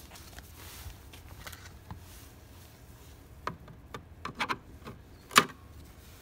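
A Phillips screwdriver working at a screw in a car's plastic interior trim panel: scattered light clicks and scrapes, most of them in the second half, the loudest a sharp click near the end.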